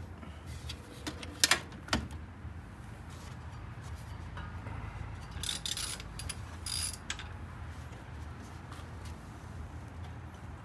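Hand tools and drive belt at work on the engine's belt tensioner: a few sharp metallic clicks about a second and a half in, then short scraping and rubbing sounds midway as the belt is worked off the pulleys.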